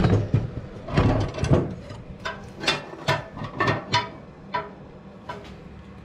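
Metal shafts of a Chicago Electric rotary tumbler knocking and clinking against its sheet-metal frame as it is taken apart for a bushing change: about a dozen sharp knocks at uneven intervals, some ringing briefly.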